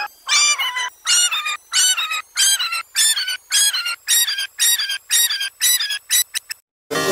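A short high-pitched cartoon call, repeated in a stuttering loop about every 0.6 s; near the end the repeats come faster and closer together, then it cuts off abruptly.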